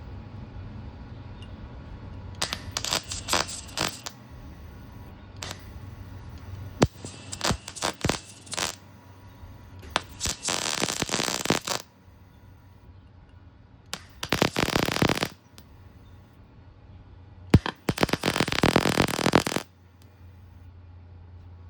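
MIG welder laying short runs of weld to build up a nut on a snapped exhaust header stud so it can be backed out of the cylinder head: five spells of crackling, sizzling arc, each one to two seconds long, with a steady low hum in the gaps.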